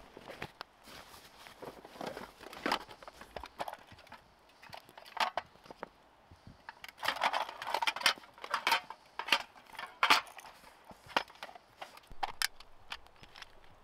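Small metal tins being handled: a string of light clicks, taps and rattles as a tin box is set down, its hinged lid opened and smaller tins inside are moved about. The clatter is busiest just past the middle.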